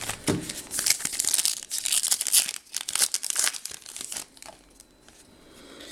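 Crinkling and tearing of a trading-card pack's plastic wrapper being handled and opened, a dense rustle with small crackles that dies away about four and a half seconds in.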